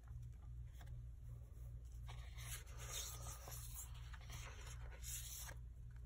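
Paper sticker sheets being picked up, shuffled and slid over planner pages: faint rustling and rubbing, busiest in the second half, over a steady low hum.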